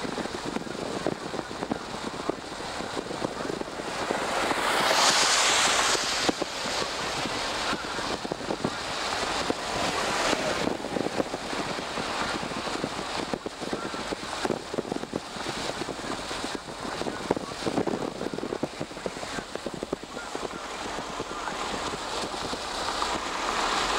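Road and wind noise of a car driving at highway speed, a steady rush with a louder swell about four seconds in and rising again near the end.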